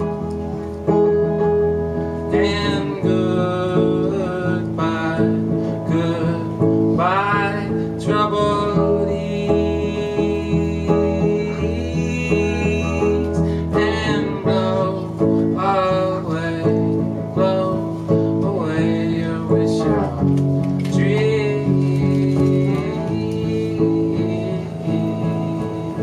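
Live solo song: an archtop guitar played through an amplifier, with a man singing over it.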